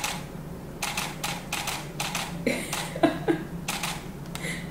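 A baby tasting a lemon slice, her lips and mouth making a quick irregular run of wet smacks and clicks, with a few short grunts about halfway through, over a low steady hum.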